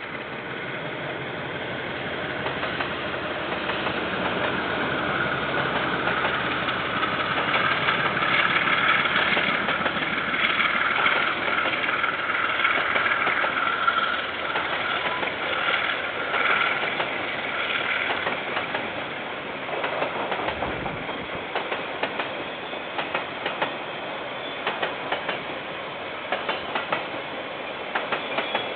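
A KiwiRail train passing, picked up by a security camera's microphone: it grows louder over the first several seconds, with a high screech through the loudest stretch, then the wheels click rhythmically over the rail joints as the wagons roll by.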